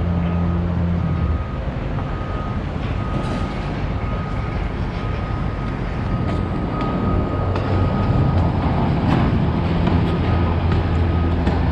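Construction-site and street noise: a heavy engine hums low, fading out about a second in and coming back near the end, while a reversing alarm beeps steadily over it, with scattered knocks and clanks.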